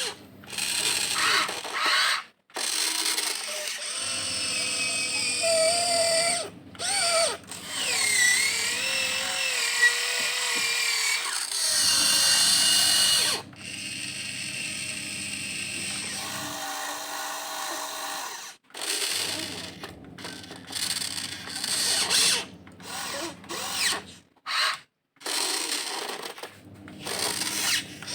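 Electric motors and metal gearboxes of a Huina 1592 RC excavator whining in stop-start runs as its arm, bucket and turntable are worked. The pitch rises and falls with motor speed, and there are brief silent pauses between moves.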